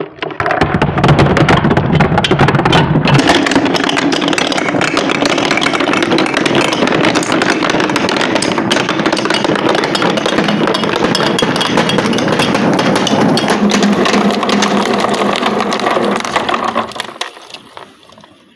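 A mass of marbles rolling and clattering down a marble-run track, a dense continuous rattle of clicks over a rumbling hum. It starts within the first second and dies away about 17 seconds in as the marbles run out.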